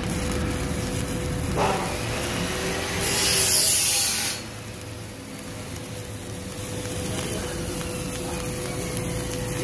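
Arc welding: a coated electrode in a stick-welding holder burning on thin (1 mm) stainless steel, a steady crackling hiss. About three seconds in the arc turns louder and harsher for a little over a second, then settles back to a quieter sizzle.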